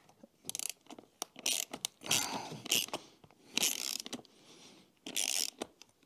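Socket ratchet wrench on an extension clicking as it turns the clamp nut of a bicycle seat: about five short bursts of rapid ratcheting, one per stroke of the handle.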